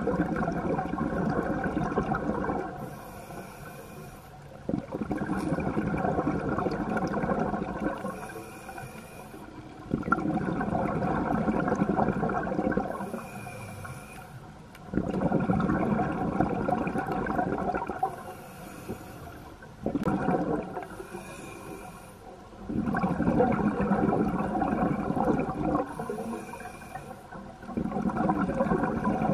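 Scuba diver breathing through a regulator underwater. About six bubbling exhalations, each lasting two to three seconds, come roughly every five seconds. Between them is a faint hiss as the regulator delivers air on each inhalation.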